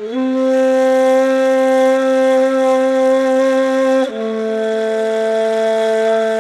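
Ney, the end-blown reed flute, playing a long held note with breath noise, stepping down to a slightly lower held note about four seconds in.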